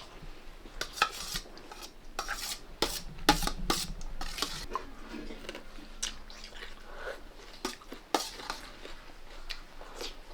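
Spoons clinking and scraping on plates as people eat: irregular clinks and scrapes.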